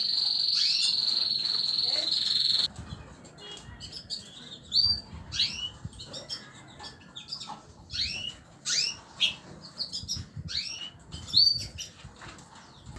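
Small pet birds chirping: a steady high trill for the first couple of seconds, then a run of short, scattered high chirps that slide up and down in pitch.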